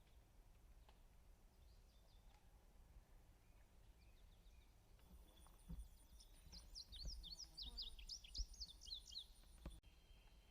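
Faint footsteps of a hiker walking on a trail, quiet overall. A bird calls a quick run of sharp, down-slurred chirps from about six to nine seconds in, over a thin, high, steady buzz.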